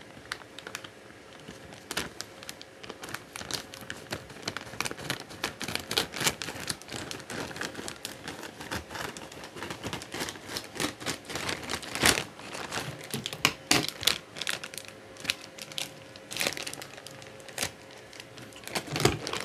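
Grey plastic courier mailer bag crinkling and rustling as it is cut open with scissors and pulled apart by hand, with many irregular small crackles.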